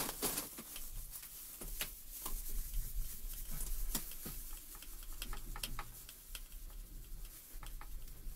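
Fine 0000 steel wool pad, wet with Lime Away, scrubbed fast in circles over window glass: a scratchy rubbing full of irregular ticks and clicks as it grinds off hard-water deposits.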